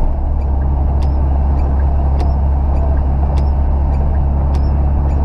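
Cabin noise of a VW Gol CHT 1.6 cruising on a wet highway: a steady low engine and tyre drone. A short click with a faint squeak comes about every second and a bit, in time with the windshield wipers sweeping.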